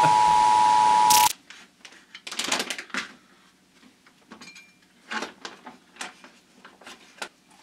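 A steady test-card beep over loud static, cutting off about a second in. Then scattered crinkles and clicks of a foil freeze-dried food pouch being handled and opened.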